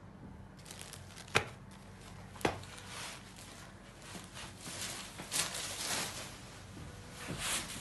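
Two sharp knocks about a second apart, then the crisp rustle of a soft-silk saree with a zari border being unfolded and spread out on a table by hand, swelling in a few swishes with the loudest near the end.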